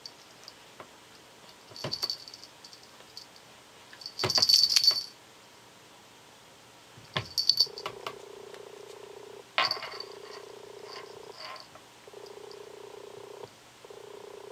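A cat licking with a rasping tongue while its collar bell jingles in short bursts, the loudest about four to five seconds in. From about halfway through the cat purrs steadily, with brief breaks.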